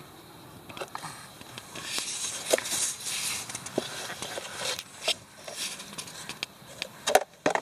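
Sand and plastic sandbox toys scraping and knocking: a scatter of small clicks and rustles, busier from about two seconds in, with a few sharper knocks near the end.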